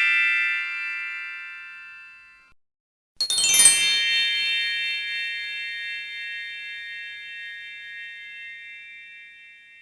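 The ringing tail of a struck bell fading out. About three seconds in, a higher-pitched bell is struck and rings for about six seconds, slowly fading.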